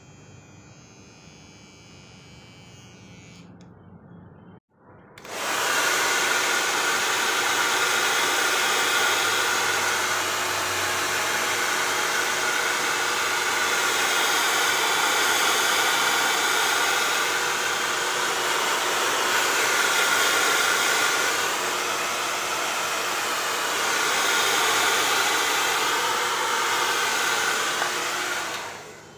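Handheld hair dryer blowing steadily, a loud even rush of air and motor that starts abruptly about five seconds in and stops just before the end.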